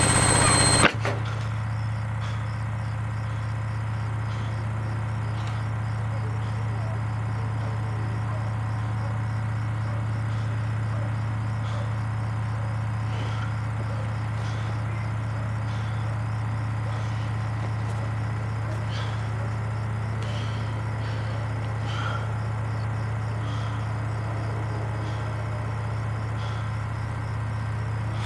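Loud yelling cuts off abruptly about a second in. It gives way to a steady low hum, like an engine running, with faint, evenly repeating high chirps like crickets over it.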